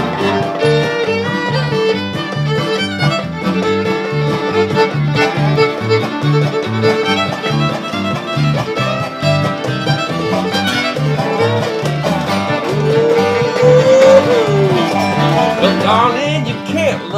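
Instrumental break of a live bluegrass-style string band: a fiddle carries the melody over strummed acoustic guitar, resonator guitar and a steady two-beat bass line.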